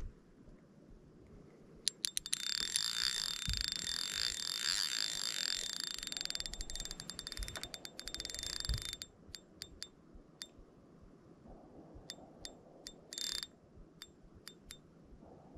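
Fishing reel drag clicking in a fast, ringing rattle for about seven seconds as a large fish pulls line against it, then slowing to scattered single clicks, with one more short run near the end.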